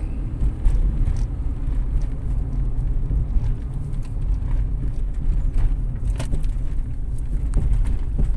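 Road and engine noise of a moving car heard from inside the cabin: a steady low rumble, with a few brief knocks.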